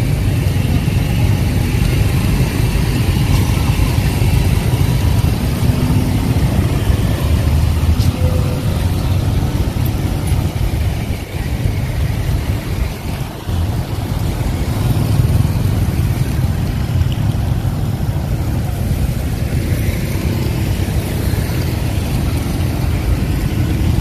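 A motor vehicle running, heard as a steady low rumble with a short quieter stretch around the middle.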